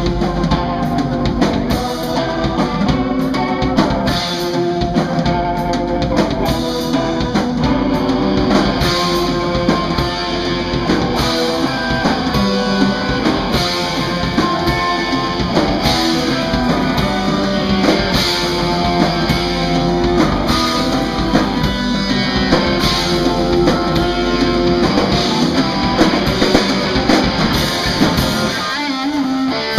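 Live rock band playing: electric guitar over a drum kit. The low end drops out for about a second near the end.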